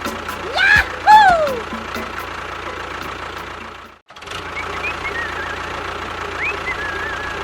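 Small motor of a DIY mini tractor/bulldozer model running steadily with a thin whine. It stops briefly about four seconds in, then carries on. About a second in, a short gliding vocal call sounds over it.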